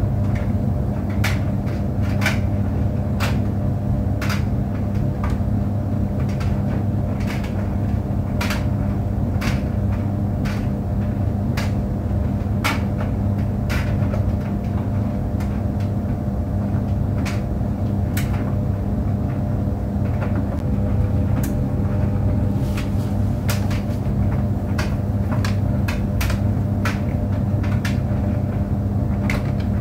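Tumble dryer running: a steady low hum and rumble, with irregular sharp clicks and knocks, roughly one a second, from the tumbling drum.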